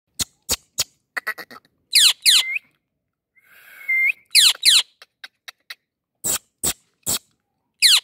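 Indian ringneck parakeet calling. It gives short, loud screeches that sweep steeply down in pitch, mostly in pairs, with runs of short sharp clicks between them.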